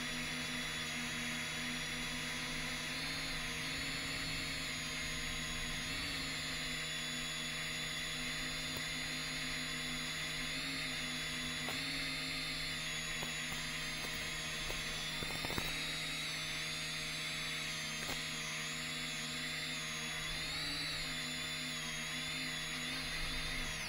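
10-inch FPV quadcopter's electric motors and propellers whining in flight, their pitch wavering up and down with throttle, over a steady lower hum.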